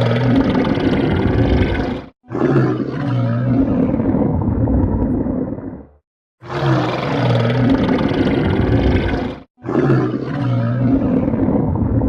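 Stomach growling: long rumbling growls that cut off abruptly, the same pair of growls repeating about every seven seconds as a loop.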